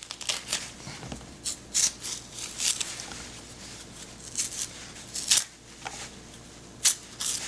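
Thick green burro banana peel pulled and torn off by hand: short, irregular crisp snaps and rips, some spaced well apart.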